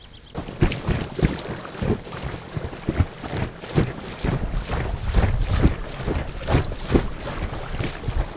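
Choppy lake water slapping irregularly against the hull of an inflatable boat, about two slaps a second, with wind buffeting the microphone.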